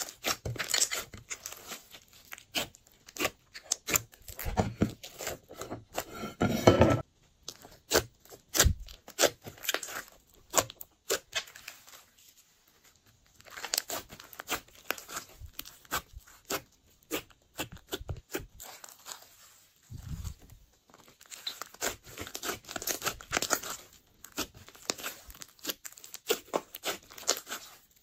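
Glossy slime being squeezed, stretched and kneaded by hand, making dense, irregular sticky crackles and clicks. There is a short lull about halfway through.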